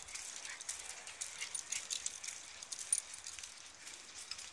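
Faint, irregular light clicks and scuffs from a walk with three small dogs on leashes along a paved pavement.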